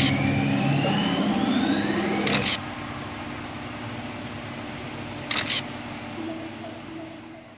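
Three single-lens reflex camera shutter clicks, spaced two to three seconds apart, over background music that drops away about two and a half seconds in and fades out near the end.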